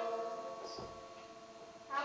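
A guitar chord ringing out and slowly fading as the strings decay, in a pause between sung lines.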